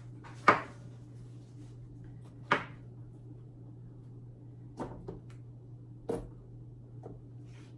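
A kitchen knife cutting through pineapple and knocking on a wooden cutting board: about six sharp, irregularly spaced knocks, the two loudest in the first few seconds. A steady low hum runs underneath.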